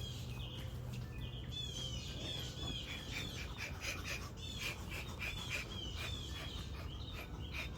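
A songbird calling over and over: a quick series of short, slurred chirps, coming faster from about three seconds in, over a steady low hum.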